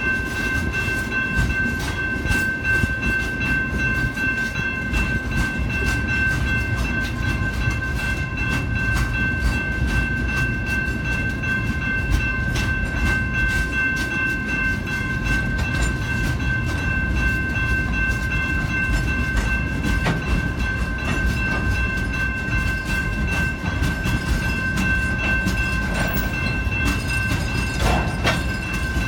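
Train cars rolling past: a steady low rumble with rapid clicking of wheels over the rails, and a steady high-pitched ringing tone throughout.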